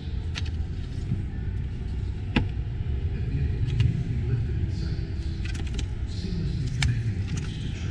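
Steady low rumble of a busy exhibition hall with faint background voices. A few sharp clicks sound over it, the loudest about two and a half seconds in, as a hand handles the plastic trim of the SUV's cargo area.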